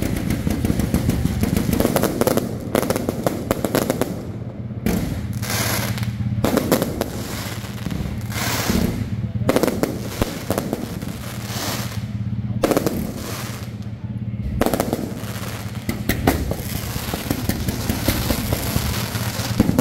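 Electrically fired aerial fireworks display: rapid volleys of launches and bursts that crackle like machine-gun fire, coming in waves that swell and ease every few seconds.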